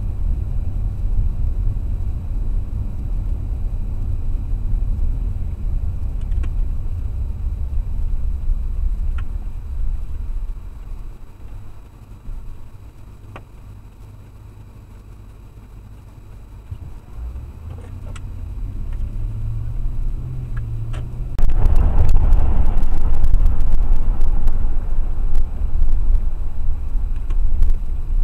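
Car driving, heard from inside the cabin: a steady low road and engine rumble. It goes quieter for several seconds in the middle, then from about three quarters of the way through turns louder and rougher, with scattered crackles.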